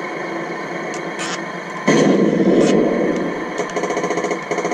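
Built-in sound unit of a Tamiya 1/16 RC M551 Sheridan tank playing through its small speaker: a steady engine-idle effect, then a loud cannon-fire blast a little under two seconds in, followed about three and a half seconds in by a fast rattle of machine-gun fire.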